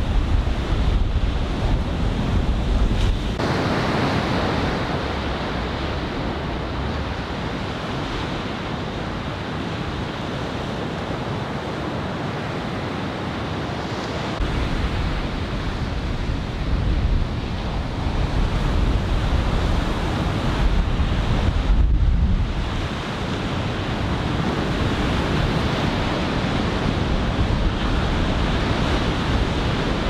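Ocean surf breaking and washing ashore in a steady rush, with wind buffeting the microphone at times. The sound shifts abruptly twice, about three seconds in and again about two-thirds of the way through.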